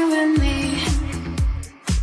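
Pop-disco music: a sung note glides down and is held, then a deep four-on-the-floor beat with bass comes in about half a second in, dropping out briefly near the end.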